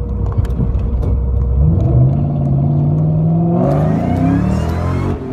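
2003–2004 Mustang SVT Cobra's supercharged 4.6-litre V8 accelerating under boost, heard inside the cabin. The engine note climbs in pitch from about a second and a half in, and a higher whine rises above it near the end.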